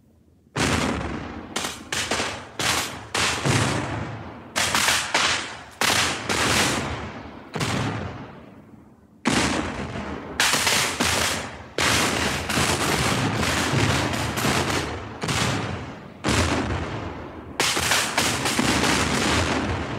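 Battle gunfire: a long, irregular string of sharp shots, each trailing off in an echoing tail, coming every half second to a second with a short lull a little before halfway.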